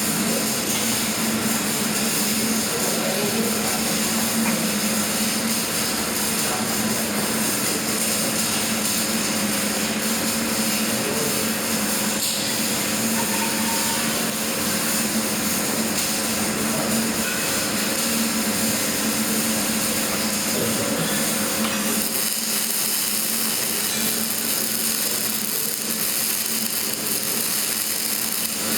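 Electric arc welding: a steady crackling hiss with a low hum underneath, going on without a break.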